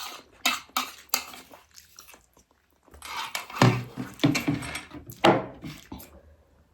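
Eating at a plate: chopsticks clicking against the dish a few times, then irregular chewing and slurping noises.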